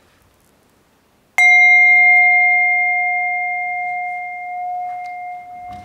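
A singing bowl struck once about a second and a half in, ringing on in a steady two-tone hum that slowly fades; it marks the end of a period of silent meditation.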